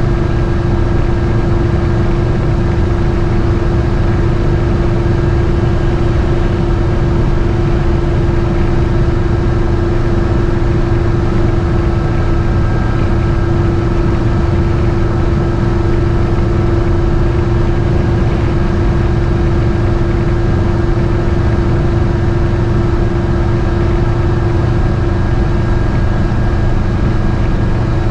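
GMC motorhome's V8 engine and road noise heard from inside the cabin while cruising at a steady speed, a constant pitched hum riding over the low rumble.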